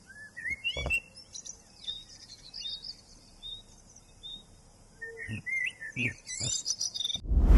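Wild birds chirping and singing in short, varied calls that slide up and down in pitch, with a few soft low thuds in between. The birdsong cuts off abruptly just before the end.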